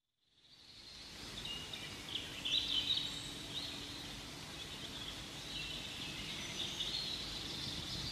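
Small birds chirping in short, quick calls over steady outdoor ambience, fading in from silence.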